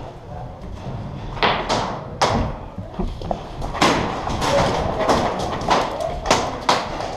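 Paintball fire: a string of sharp pops and smacks, irregularly spaced about half a second to a second apart, echoing in an enclosed hall.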